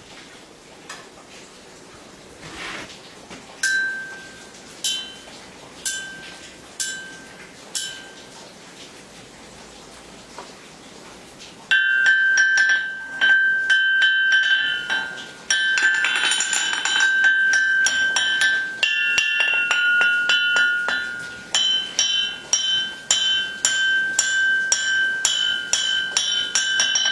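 358 lb North German anvil ringing under steel strikes. First come about five single clear rings roughly a second apart. Then, from about twelve seconds in, runs of rapid bounces keep the face ringing almost continuously, as in ball bearing bounce and hammer rebound tests of a hard, lively anvil face.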